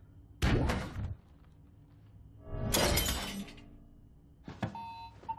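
Film fight sound effects: a heavy impact about half a second in, then a longer loud crash of shattering glass, then a smaller knock and a short electronic beep near the end.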